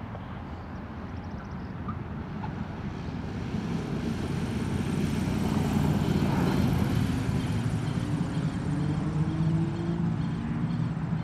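Cirrus SR22T's turbocharged six-cylinder piston engine and propeller running as the plane rolls along the runway past the listener, growing louder until about six seconds in and easing off a little as it moves away.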